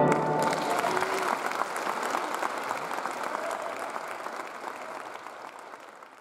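Audience applauding a concert band, the clapping fading steadily away.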